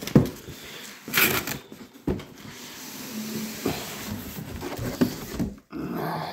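Cardboard cartons being handled: a boxed portable power station is pulled out of its outer shipping box, with a sharp knock at the start, a scraping rush of cardboard on cardboard about a second in, another knock, then rustling and bumping.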